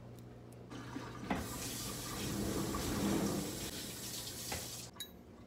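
Kitchen faucet turned on and running into a stainless steel sink as hands are rinsed under the stream, with a light knock just after it starts. The water shuts off abruptly near the end.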